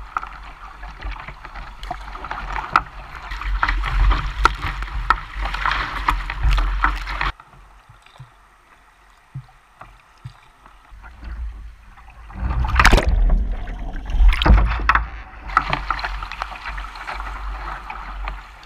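Sea kayak paddling through choppy sea: water rushing and splashing around the hull and paddle, with a low rumble of wind on the microphone. Midway it drops for about five seconds to quiet paddle strokes and drips on calm water, then the rough water returns with two loud splashes.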